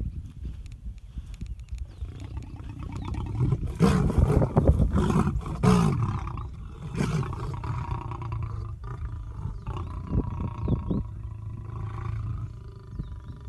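Male lion growling at people approaching on foot, an aggressive warning display. A deep, pulsing growl lasts about two and a half seconds, starting a few seconds in, and a shorter one follows about a second later.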